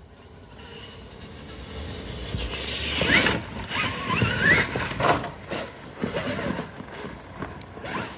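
Electric RC monster truck's Castle Creations brushless motor whining as it is throttled, rising in pitch twice about three and four and a half seconds in, with scattered knocks from the truck moving over rough ground.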